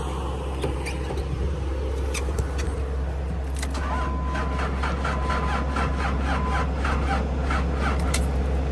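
A diesel tractor engine idling steadily, running to charge a dead truck battery. A few sharp clicks sound over it, and about four seconds in a steady tone sounds for a few seconds alongside quick ticking, about three a second.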